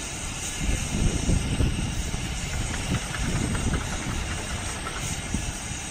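Crane truck's engine running to power the knuckle-boom crane while it holds a steel beam, with an uneven low rumble that swells about a second in and fades away a few seconds later.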